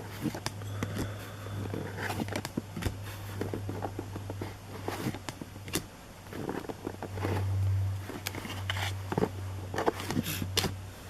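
Baseball trading cards and foil pack wrappers being handled: irregular small clicks, slides and crinkles, over a steady low hum.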